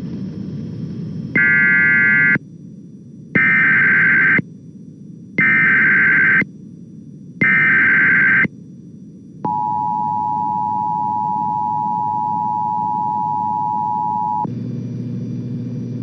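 Emergency Alert System tones broadcast over radio: four short buzzing bursts of SAME header data, about a second each with short gaps, then the steady two-tone EAS attention signal held for about five seconds. It cuts off to a low steady background hum.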